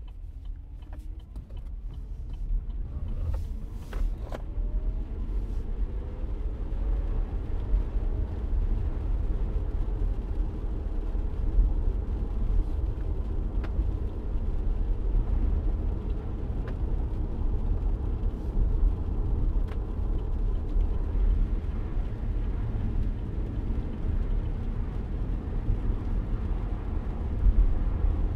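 Car pulling away and accelerating, its engine pitch rising over the first few seconds, then settling into a steady low rumble of engine and tyres on wet road, heard from inside the cabin. A few light clicks sound now and then.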